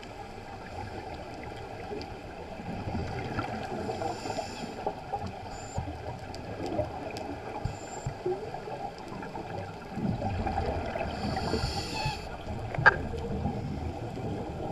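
Muffled underwater gurgling picked up through a diving camera, with a scuba diver's breathing: two hissing breaths through the regulator about four and eleven seconds in, and a rush of exhaled bubbles around ten to twelve seconds in. A single sharp click sounds near the end.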